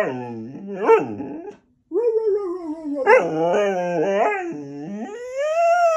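Goldendoodle whining and howling in a long, wavering complaint, with a short break about a second and a half in and the pitch climbing near the end.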